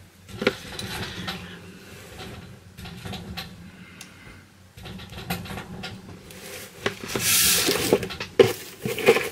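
Unboxing handling sounds: small clicks and taps as a metal medallion and its packaging are handled, with a louder stretch of packaging rustling about seven seconds in.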